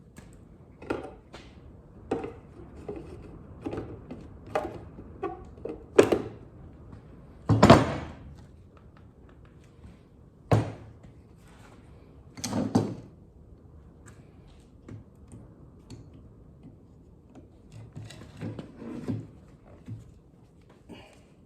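Irregular wooden knocks and clunks as birdhouse boards are handled and set in place, the loudest a handful of sharper thunks in the first half.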